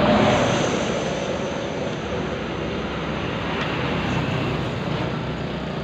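Road traffic: a motor vehicle going past, loudest at the start and fading to a steady rumble.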